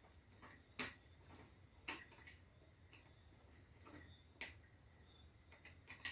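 Faint, irregular small clicks and ticks of hand work on a single-pole light switch: the hot wire being fitted to a screw terminal with a screwdriver. The clicks come a second or two apart, the sharpest about a second in.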